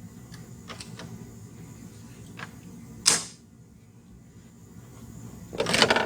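Light ticks, then a single sharp knock about three seconds in, and a short rattling clatter near the end: hard objects being handled, such as tools or wood.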